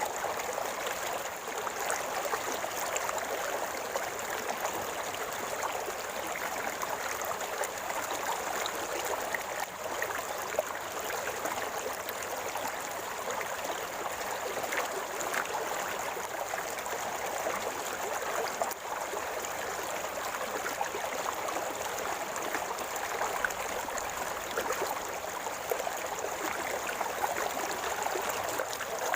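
River water flowing and gurgling in a steady, even rush.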